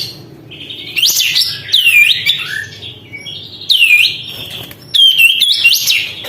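Olive-winged bulbul (kapas tembak) singing energetically. It gives three bursts of chattering song, each with sharp down-swept, hooked whistles over a buzzy rattle, separated by short pauses.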